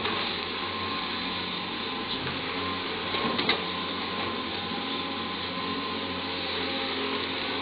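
Caterpillar 320D hydraulic excavator running steadily under load as it digs loose coal, with a sharp clank about three and a half seconds in.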